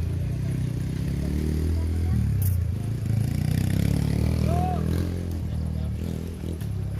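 Off-road vehicle engine running under load, its pitch rising and falling as it is revved. There is a sharp knock about two and a half seconds in.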